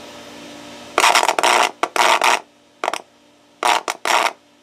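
Scratchy crackle from the airband receiver kit's cheap 10K volume potentiometer as the knob is turned, played through amplified speakers: a faint hiss, then several uneven bursts of loud static-like scratching starting about a second in. The pot is worn or dirty.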